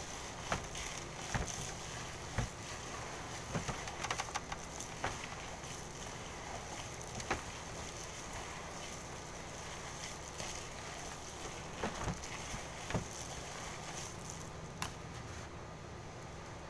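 Hands squeezing and kneading a ground-meat meatloaf mixture in a stainless steel bowl: irregular soft knocks and clicks as fingers hit the bowl, over a steady low hum.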